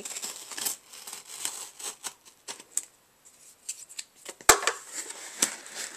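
Scissors cutting through the packing tape along the seam of a cardboard shipping box: a run of short snips and scrapes with a brief pause about halfway. One loud, sharp knock comes about four and a half seconds in.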